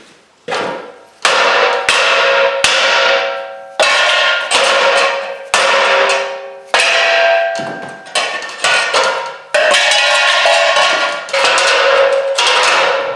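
Hammer blows on aluminum ladder pieces, about a dozen sharp strikes spaced roughly a second apart, each leaving a ringing metallic tone. The rungs are being knocked loose from the extruded 6061-T6 side rails.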